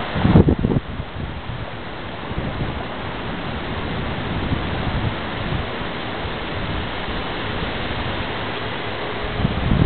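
Steady rushing noise of a storm outdoors, with a brief loud low rumble just after the start and another near the end.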